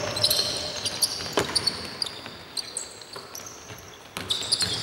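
Basketball being dribbled on a hardwood court, with sneakers squeaking on the floor. One bounce about a second and a half in is the loudest.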